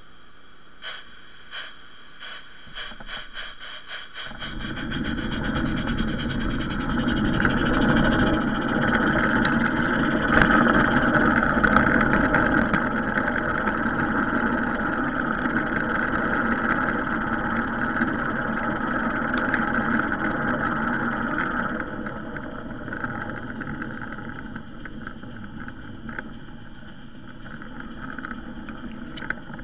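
Garden railway train pulling away and running along its track, heard from a wagon in the train: a few clicks that come quicker over the first seconds, then a steady rolling rumble of wheels on rail that eases off somewhat in the last third.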